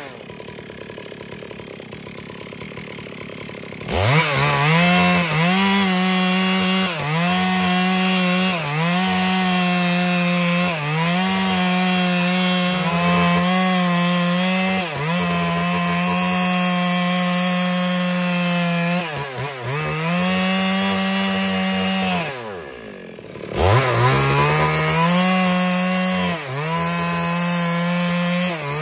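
Stihl MS 382 two-stroke chainsaw ripping lengthwise along a red meranti log. It idles for the first few seconds, then runs at full throttle, its pitch dipping and recovering every couple of seconds as the chain bogs under load in the wood. About 22 seconds in it drops back briefly, then revs up again and cuts on.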